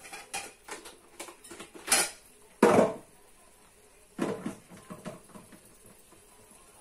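Kitchen clatter of dishes and containers being handled: a string of knocks and rattles, loudest about two and three seconds in, with another clatter a little after four seconds.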